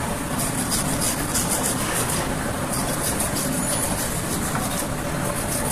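Automatic dishwasher running: a steady churn of its pump with water spraying and splashing inside the tub, in an uneven flicker of hiss.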